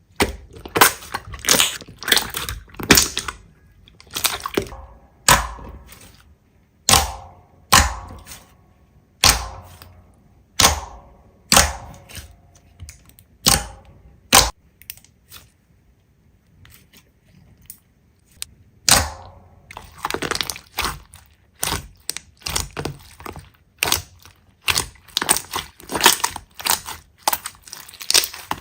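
Slime being squeezed and poked, giving sharp crackling pops and clicks at irregular intervals, with a quieter pause about halfway through.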